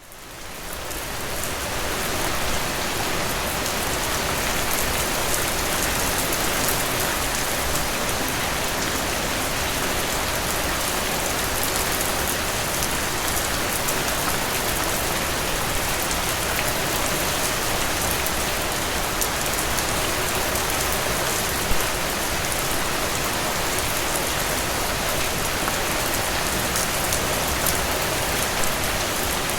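Steady heavy rain falling, a dense hiss of drops with fine individual patters, fading in over the first couple of seconds. One louder drop strikes about two-thirds of the way through.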